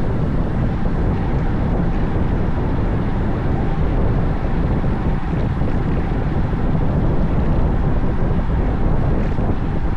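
Steady wind rushing over the microphone of a camera riding along on a bicycle, a dense low rumble that never lets up.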